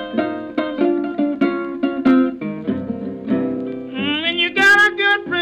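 Acoustic blues-style music: plucked string notes picking out an intro, then about four seconds in a long held note that bends up and wavers.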